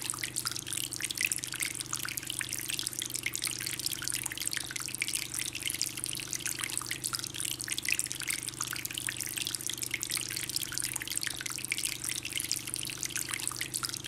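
Water in a bamboo tabletop fountain trickling and dripping as it falls from one bamboo spout into the next and down into the basin, with a steady low hum underneath.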